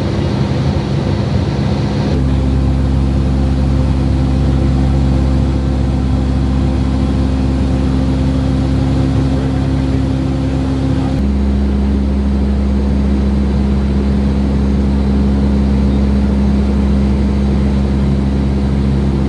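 Steady drone of the NASA P-3's turboprop engines, several low tones held over a rushing noise. The tones jump to a new pitch abruptly about two seconds in and again about eleven seconds in.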